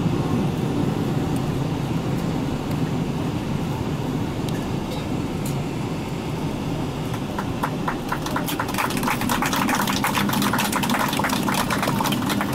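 Steady low rumble inside the cabin of a Boeing 777-300ER rolling down the runway after landing. About seven seconds in, a fast irregular rattling joins and gets stronger.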